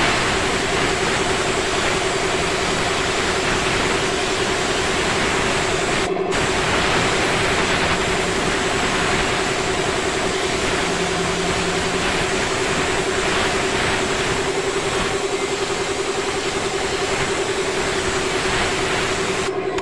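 Paint spray gun hissing steadily as it sprays a coat onto a plastic scooter fairing panel, over a steady motor hum. There is a brief break about six seconds in.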